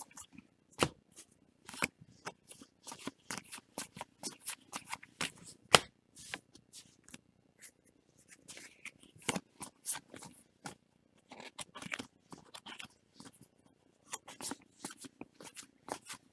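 2019 Topps Series 2 baseball cards being flicked through by hand, one after another: an irregular run of crisp card-on-card flicks and rustles, with one sharper snap about six seconds in.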